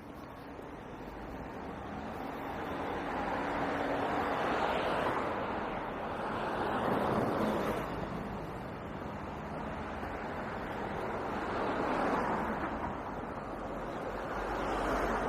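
Road traffic going by: tyre and engine noise swelling and fading as vehicles pass, about four times.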